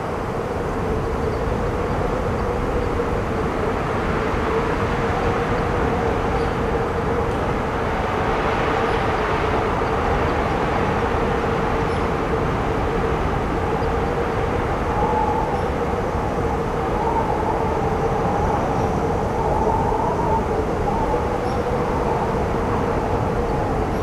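Storm wind blowing hard and steadily, with a steady whistling tone in it and a second, higher whistle that wavers up and down from about fifteen seconds in.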